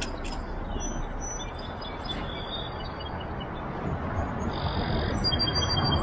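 Small birds calling with high, thin whistled notes, several short phrases, over a steady rushing background noise.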